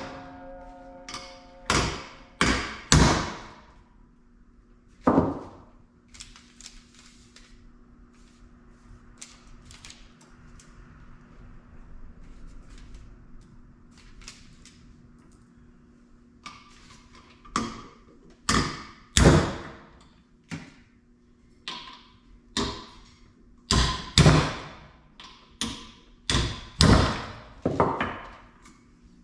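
Hammer striking a spark plug socket held on the valve spring retainers of a Ford 302 cylinder head: sharp metal blows that knock the valve keepers loose so the springs come off without a spring compressor. There are three blows at the start, then a quiet stretch with light clinks of parts being handled, and then a quick run of about a dozen blows.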